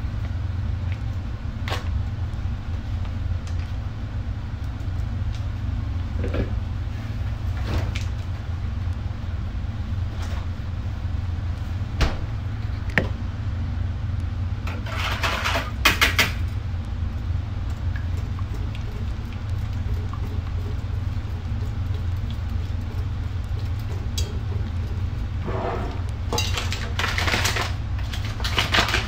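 A steady low hum runs throughout, with scattered light clicks. There are two spells of metal clatter, about halfway and again near the end, where a wire whisk knocks and scrapes against a stainless steel pot of melting butter.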